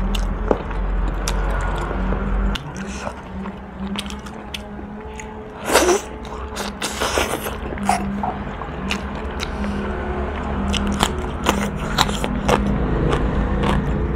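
Close-miked eating sounds: chewing and biting on boiled pork-bone meat, with many sharp wet clicks and smacks and the scrape of gloved fingers pulling meat off the bone. A louder burst comes about six seconds in, over a steady low hum.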